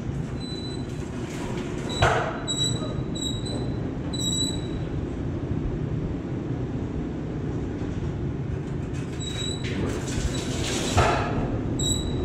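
PCC streetcar New Jersey 26 rolling slowly forward along the carbarn track on a test run, with a steady low rumble of motors and wheels. Two sharp clunks come about two seconds in and near the end, and a few brief high squeaks sound along the way.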